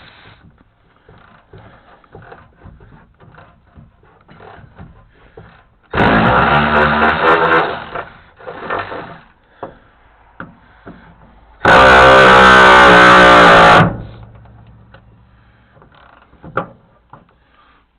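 A cordless impact tool runs in two bursts of about two seconds each, one about six seconds in and a louder one about twelve seconds in, working on rusted bolts. Light clicks and clinks of hand work come between the bursts.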